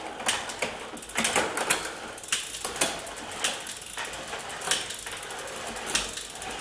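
Freshly installed bicycle chain being cranked through the rear derailleur's pulley wheels, grinding and rattling with an irregular run of clicks. The grinding sounds terrible and the owner suspects the chain is not sitting properly on the pulley wheels.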